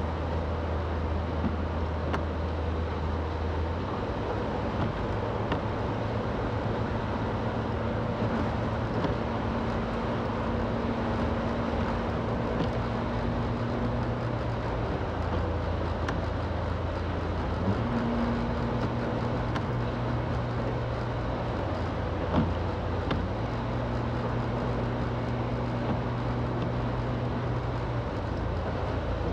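Car being driven on the road: steady tyre and road noise under a low engine drone. The engine hum changes pitch several times, sliding up briefly about eighteen seconds in, as the speed changes.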